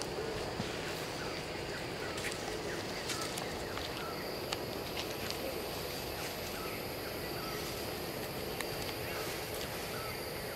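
Outdoor ambience of scattered short, high animal chirps and sharp clicks over a steady high hum and a low rumble.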